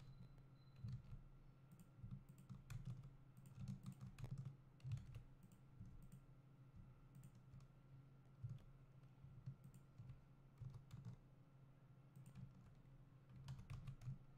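Faint, irregular clicks of a computer mouse and keyboard keys over a low steady hum.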